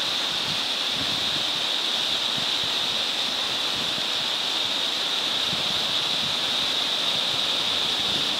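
Small mountain waterfall cascading down a rock face, a steady, unbroken rush of water.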